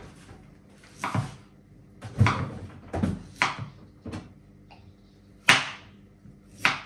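Kitchen knife knocking on a wooden cutting board as peaches are sliced: about six sharp, irregular knocks, the loudest about five and a half seconds in, with refrigerator-door and shelf clatter mixed in.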